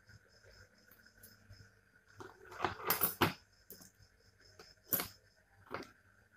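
Hard plastic parts of a Manto AIO 80W vape pod mod clicking and clattering as the case is pulled apart by hand. A burst of rattling comes about two to three seconds in, followed by a few single clicks.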